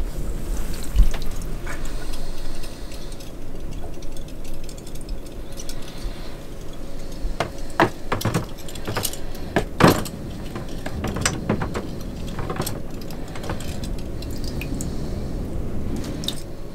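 Small metal fasteners hung on wire clinking and rattling as they are handled in a bucket of plating-prep liquid, with a cluster of sharper knocks around the middle.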